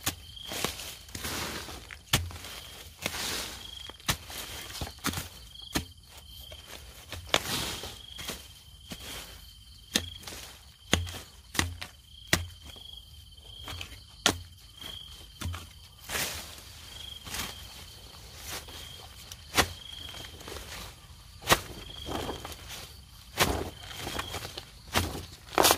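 A digging tool chopping into soil and roots to dig out banana suckers: irregular sharp chops about once a second, with some scraping swishes in between. A steady high insect chirp runs underneath.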